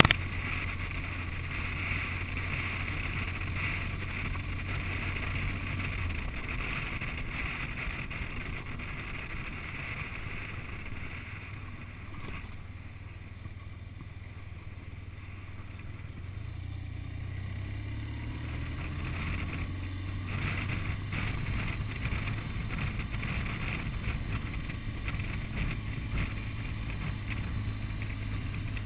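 BMW R1200GS Adventure's flat-twin engine running steadily under way, with wind noise on the camera microphone. The engine note drops about six seconds in, and the sound eases off for a stretch past the middle before building again.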